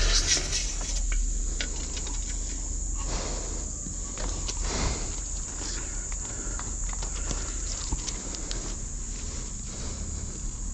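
Steady high-pitched insect trilling, with scattered light clicks and knocks.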